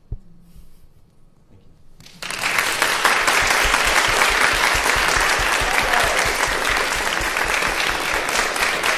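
A single thump right at the start, then about two seconds later an audience starts applauding and keeps clapping steadily.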